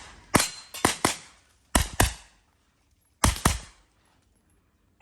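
Gunshots fired in three quick pairs, each shot sharp with a short echo after it: double-taps in a practical shooting stage.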